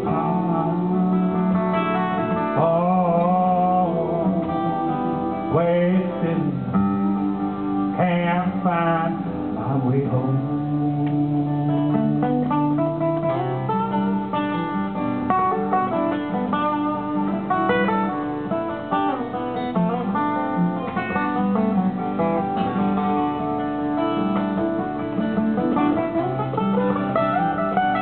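Two acoustic guitars played together live, with a man singing over them.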